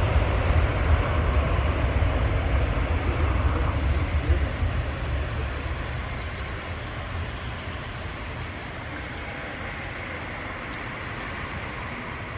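Boeing 737-800 jet engines rumbling at takeoff power, with a deep low end, loud for the first four seconds or so and then fading steadily as the jet climbs away.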